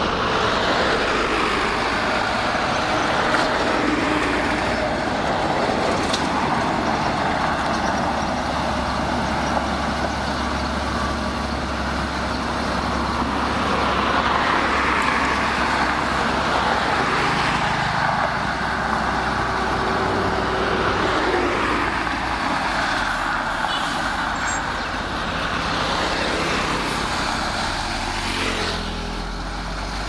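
Diesel engine of a loaded dump truck running as it creeps along a dirt road, the low engine note shifting a few times, with the hum of road traffic behind it.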